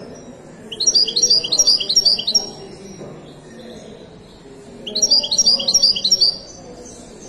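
Caged European goldfinch singing two short bursts of its twittering song, each a quick run of repeated rising notes lasting about a second and a half to two seconds. The second burst starts about five seconds in.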